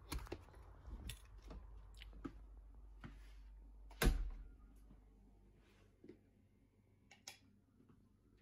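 Footsteps and small handling knocks, with one loud thud about four seconds in from a door shutting, followed by a few faint ticks.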